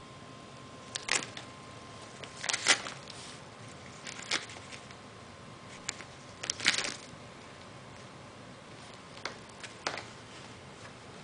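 A cat pawing and biting at a gift's red bow and wrapping paper, which rustles and crackles in short bursts, about seven of them, the loudest near the start and in the middle.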